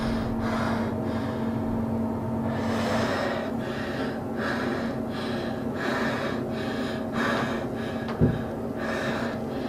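A young woman sobbing, with short gasping breaths about two a second. A low steady hum stops about two and a half seconds in, and a short thump sounds about eight seconds in.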